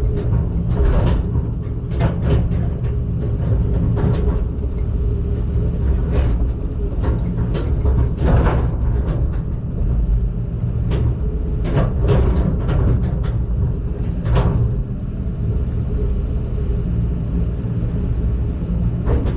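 Heavy diesel engine running steadily, with repeated clanks and knocks on top.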